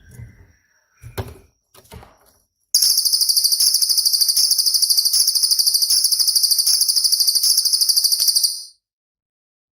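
Cililin songbird giving its loud, high-pitched 'tembakan' song, a fast pulsing trill of about six seconds that stops abruptly. A few soft low thumps come before it.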